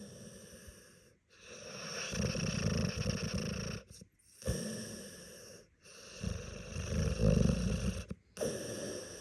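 Dog snoring in its sleep: two long, rattling in-breaths of two to three seconds each, with quieter breaths out between them.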